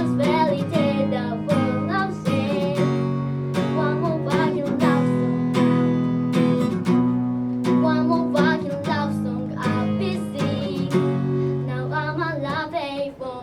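Acoustic guitar strumming chords with picked notes in between, played live without amplification.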